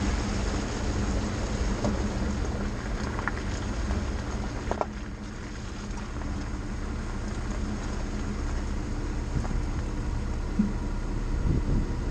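Vehicle driving along a flooded dirt road: a steady rumble of engine and tyres with water hissing and splashing under the wheels, which eases about five seconds in as the tyres roll onto gravel.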